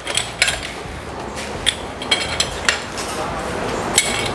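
A steel wheel brace clinking on a car's wheel nuts as they are tightened by hand with the wheel back on the ground. There are several sharp, irregular metallic clinks.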